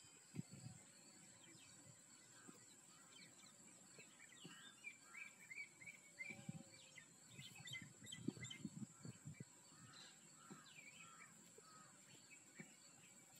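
Faint birdsong: many short chirps and twittering calls, busiest through the middle, over a steady thin high hiss, with scattered soft low thumps.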